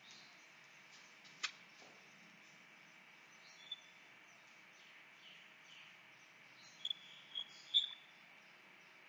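Chalk writing on a blackboard: faint scratching and tapping, with a sharp tap about a second and a half in and a few short, high squeaks near the end.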